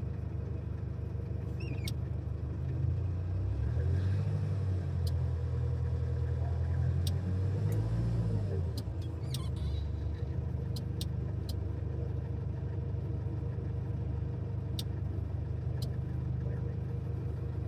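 Mercedes Sprinter van engine running, its pitch rising and falling between about three and nine seconds in before settling back to a steady run, with a few sharp clicks scattered through.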